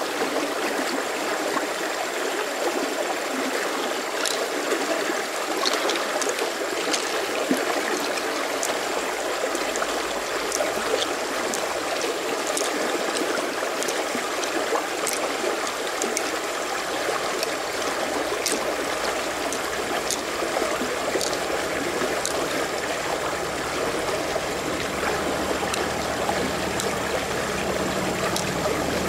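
Flowing river water, a steady rushing noise, with scattered faint ticks on top.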